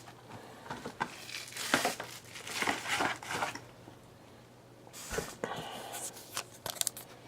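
Foil trading-card pack wrappers crinkling and tearing as packs are handled and opened, in irregular bursts with a short lull about halfway through.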